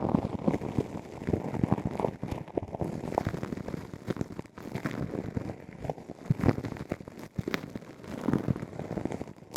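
Ear-cleaning ASMR: an ear pick scraping and crackling inside an ear canal, close to the microphone, as a dense, irregular run of small clicks and rustles.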